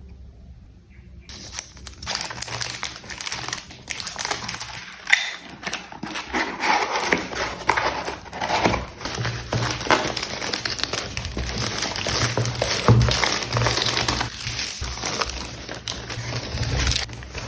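Plastic packaging crinkling and rustling as it is unwrapped by hand, over background music.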